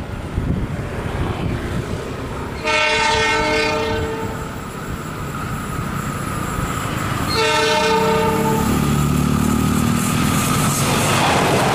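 Diesel locomotive horn sounding two blasts of about a second and a half each, a few seconds apart, as the train approaches. After the second blast the locomotive's engine rumble and the noise of wheels on the rails grow louder as it draws near.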